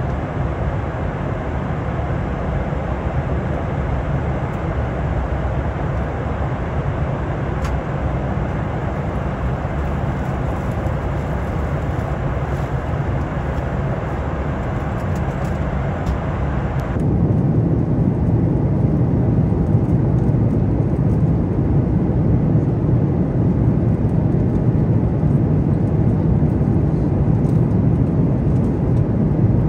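Steady cabin noise of a Boeing 737 MAX 9: an even rush of air with engine rumble underneath. About 17 seconds in it cuts abruptly to a louder, deeper rumble.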